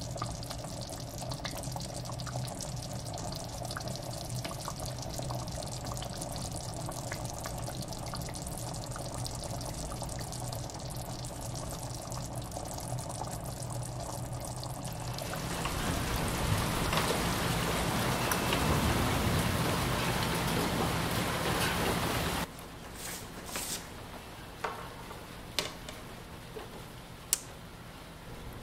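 A steady rush of water that grows louder about halfway through, then cuts off abruptly. Afterwards there are a few sharp clicks, as a record player's power knob is handled.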